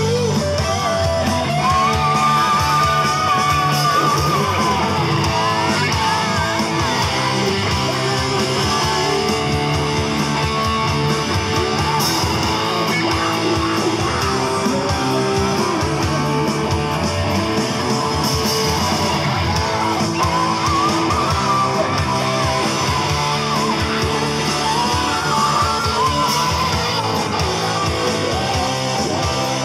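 Live rock band playing: electric guitar, bass guitar and electronic drum kit, loud and steady throughout.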